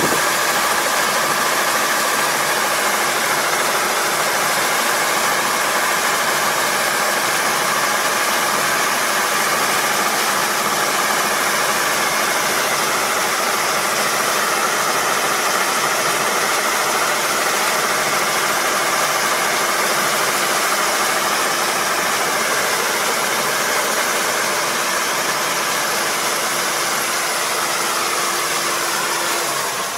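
Four-row combine harvester running steadily at working revs while its unloading auger, swung out over a truck, runs. Over the last several seconds the pitch falls and the level drops as the machine winds down.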